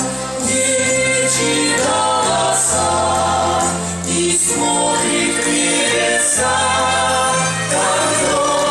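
Dance music with a choir singing over held bass notes and chords, and a soft swish about every two seconds.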